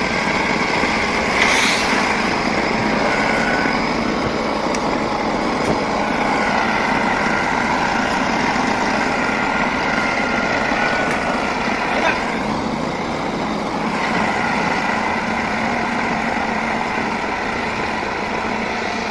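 Heavy tractor engines running steadily under load as a crawler tractor and a large wheeled tractor tow a stuck semi-truck through snow, with a steady high whine over the engine noise and a couple of brief knocks.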